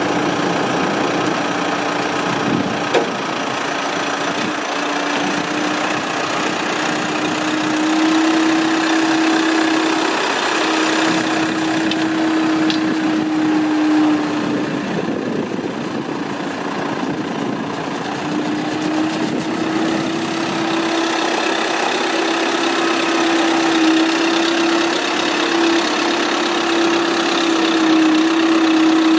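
A 2005 New Holland LB110B backhoe's diesel engine running, with a steady whine that drops out for a few seconds about halfway through and then comes back.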